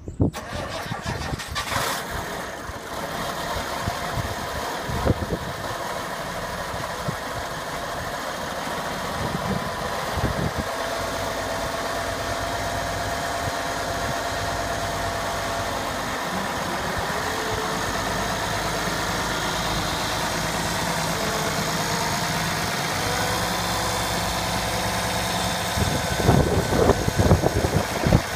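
International Harvester 1086 tractor's turbocharged six-cylinder diesel running unevenly for the first couple of seconds, then idling steadily. A few loud irregular knocks come near the end.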